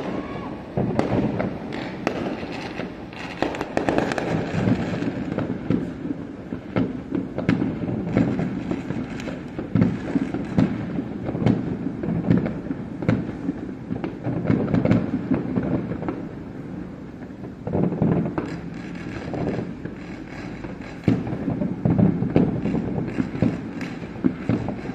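Fireworks display, with many shells bursting at once: a dense, unbroken run of bangs and crackling, with louder clusters of reports about eighteen seconds in and again a little after twenty-one seconds.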